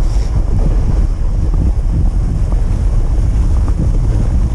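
Steady wind noise buffeting the microphone of a camera on a moving dog-pulled rig, a loud, dense low rumble.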